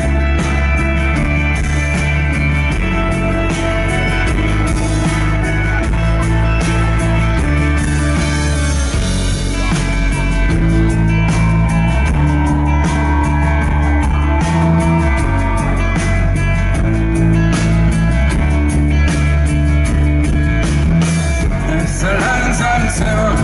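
Live pop-rock band playing a song's intro over a concert PA: steady drums, bass, guitars and keyboards. The lead singer's voice comes in near the end.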